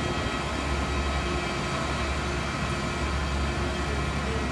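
Steady jet airliner engine noise, an even rush with a deep low hum and no change in level.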